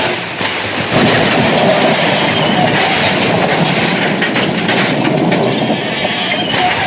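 Train running fast: a loud, dense rushing rumble, with a cluster of sharp clattering strikes about four to five seconds in.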